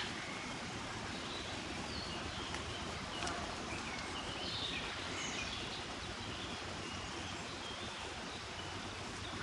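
Steady outdoor ambient noise with a few faint, short bird chirps.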